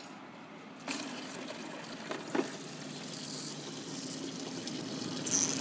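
Water running out through the drain hole in the bottom of a shallow basin and pouring into a plastic bucket below. It starts about a second in with a knock, and a couple of light knocks follow.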